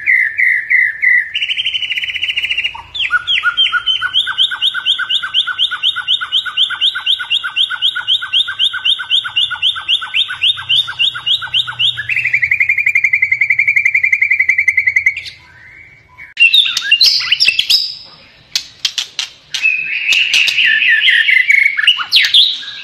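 White-rumped shama singing loudly: long runs of rapidly repeated notes, then a fast trill. After a short pause it breaks into varied phrases with sharp clicks.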